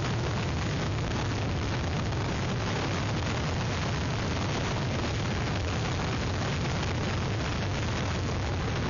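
Hurricane wind blasting across an outdoor webcam's microphone: a steady, dense rush with a heavy low rumble and no let-up.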